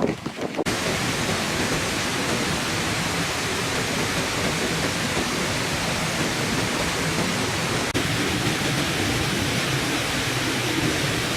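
Water pouring steadily over a garden fish pond's waterfall, an even rushing that starts abruptly about a second in.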